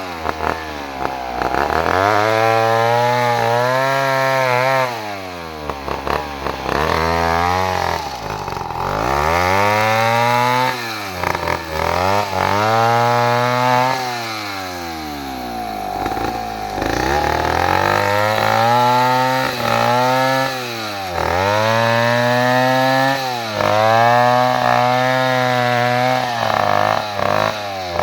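Two-stroke chainsaw running while cutting wood, its engine revving up, holding high for a second or two, then sagging back, over and over every few seconds.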